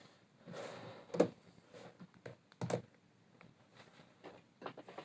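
A few light clicks and knocks of plastic puzzle cubes being handled and set down, the sharpest about a second in and again near three seconds, with a brief soft rustle before the first.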